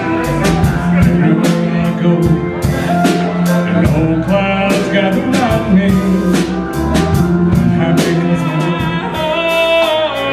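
A rock band playing a passage without lyrics, with the drum kit keeping a steady beat under sustained instrumental lines.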